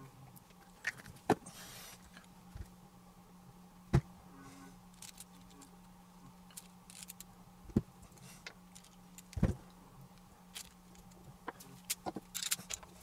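Scattered clicks and knocks of small metal transmission parts being handled and fitted back together, with a few short rustles, over a steady low hum.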